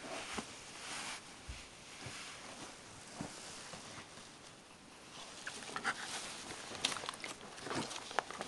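Scattered soft rustling and clicking from a whelping dog shifting on newspaper bedding, busier in the second half.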